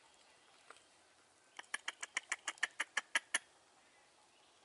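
A quick run of about a dozen short, sharp animal calls, some six a second, growing louder toward the end.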